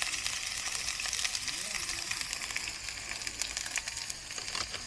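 Food sizzling as it fries in a hot pan: a steady hiss with scattered small crackling pops.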